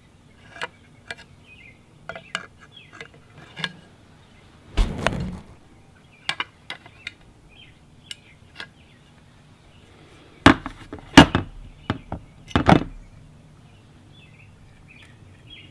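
Parts of a Crosman 761XL air gun being handled and fitted together: scattered light clicks and clinks, a dull knock about five seconds in, and three loud knocks between about ten and thirteen seconds as pieces are set down or pressed into place.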